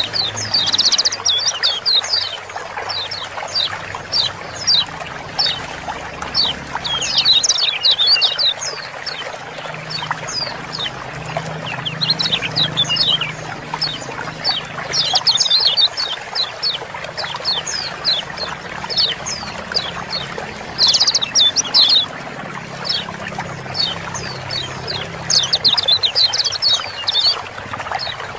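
Kecial kuning white-eyes giving rapid, sharp 'ciak-ciak' chirps, bunched into busy bursts every three to five seconds with scattered single chirps between. Underneath is a steady hiss of running water.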